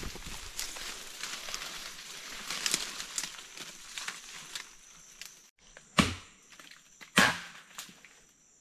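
Leaves and brush rustling as someone pushes through forest undergrowth, then two sharp machete chops into a slender palm trunk, about a second apart near the end, cutting the palm for its heart.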